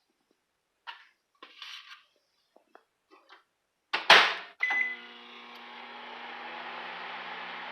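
A sharp clunk, a short high beep, then a household appliance starting and humming steadily with a low drone.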